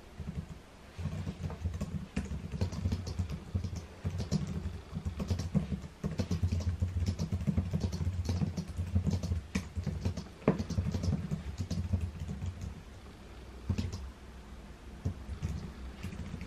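Typing on a computer keyboard: a fast, steady run of key clicks with dull thumps through the desk. The typing thins out to scattered keystrokes in the last few seconds.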